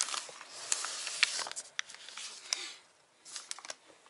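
Soft rustling handling noise with a few sharp light clicks, dying down about three seconds in before a few more small clicks.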